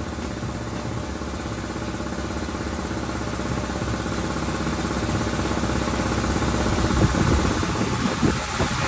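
A motor running steadily with a fast, even pulse, slowly growing louder, with irregular clattering starting about seven seconds in.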